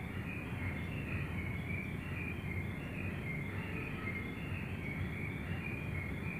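Short, high chirps repeating about twice a second over a low steady hum.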